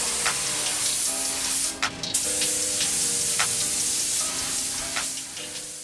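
Outro music: held notes changing pitch every second or so, with a few sharp percussion hits, over a steady hiss; it fades out near the end.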